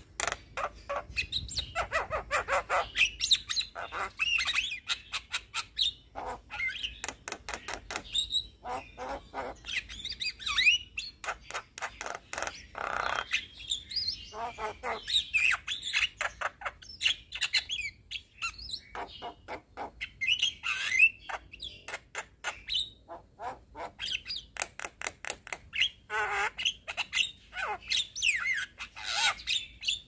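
Young Javan myna singing a long, varied run of chattering notes, squawks and whistles, mixed with quick clicking notes.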